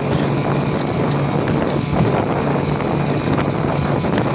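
1956 Johnson 5.5 hp two-stroke outboard motor running steadily under way, a constant low hum, with wind buffeting the microphone.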